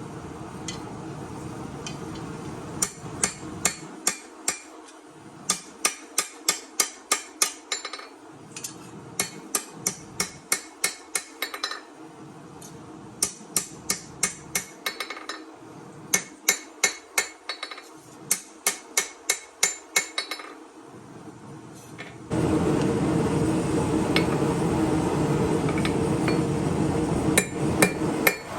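Hammer blows on steel at the anvil while forging a chef knife blade: runs of sharp, ringing strikes, several a second, broken by short pauses. About two-thirds of the way through, a loud steady rushing noise starts and the blows go on over it.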